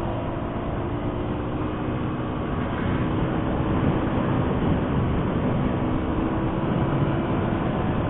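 Motorcycle engine running steadily at road speed under heavy wind and road noise, its tone holding steady while the overall level creeps up slightly.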